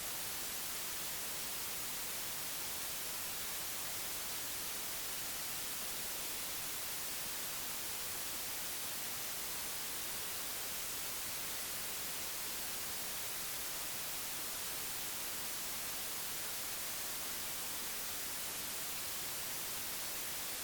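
Steady electronically generated white noise: an even, unbroken hiss that is brightest in the high end and does not change.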